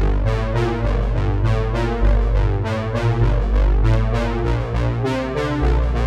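Background music: synthesizer and electric piano chords over a steady beat and deep bass.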